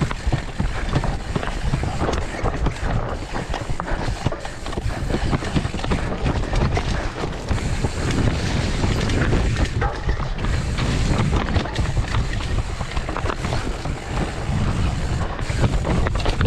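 Mountain bike ridden over rough trail: wind buffeting the microphone over a steady low rumble, with frequent knocks and rattles from the bike.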